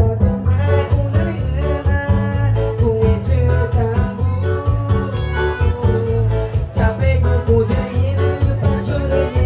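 Live cumbia band music with a steady, regular beat.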